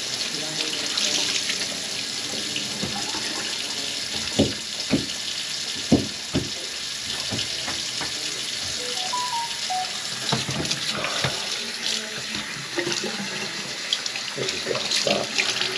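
Water running from a kitchen faucet into the sink, a steady hiss, with a few sharp knocks about four to six and a half seconds in.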